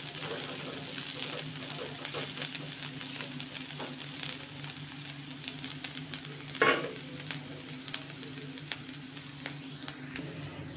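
Sliced potatoes frying in oil in an aluminium kadai, sizzling steadily with many small crackles, with a slotted spoon stirring in the pan. A single loud knock comes about two-thirds of the way through, over a steady low hum.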